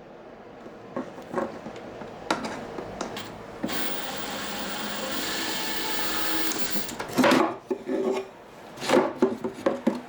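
Woodshop work sounds: a few light clicks, then a small power tool running steadily for about three seconds, followed by several sharp wooden knocks and clatter.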